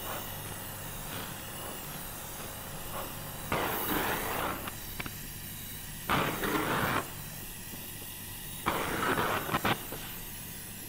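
Gas welding torch flame hissing steadily on a steel sheet, heating it for tinning with solder, with three louder rushing swells of about a second each.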